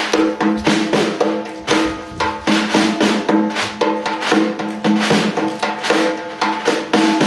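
A hand-held, skin-headed frame drum played in a fast, unbroken rhythm of strokes, several a second, with a steady ringing pitch beneath.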